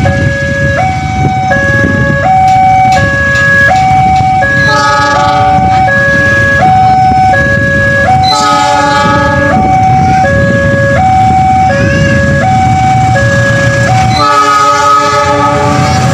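A level-crossing warning alarm sounds steadily, alternating between a low tone and a higher tone about every three-quarters of a second. Over it, an approaching diesel locomotive sounds its horn three times, each blast about a second long, beneath a low rumble of the oncoming train.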